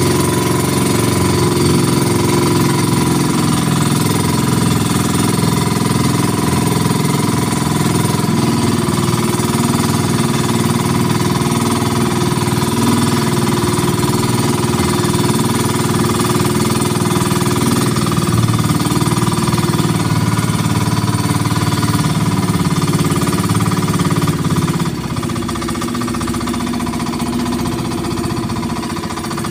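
Engine of a wooden outrigger boat running steadily under way with a fast, even chugging, easing off a little near the end.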